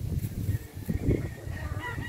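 A rooster crowing: one long drawn call that starts just over a second in and carries on past the end, over a low rumble on the microphone.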